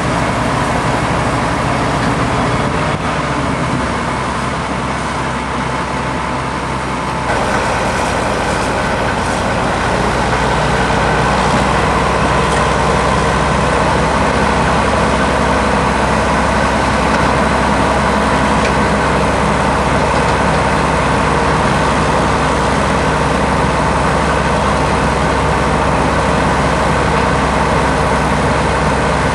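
Heavy diesel engines of crawler sideboom tractors running steadily. About seven seconds in, the engine sound steps up louder and a steady higher tone joins in, then holds.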